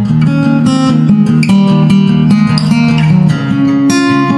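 Background music led by a plucked guitar, with notes changing every fraction of a second.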